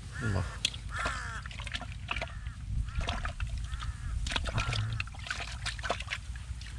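A run of short, arched animal calls, repeated every half second or so, with sharp clicks and scraping from hands digging in a muddy hole.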